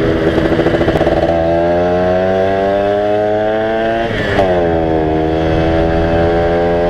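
Yamaha SS110 110cc motorcycle engine pulling under acceleration, its pitch climbing steadily. About four seconds in the pitch drops sharply as it shifts up a gear, then it starts climbing again.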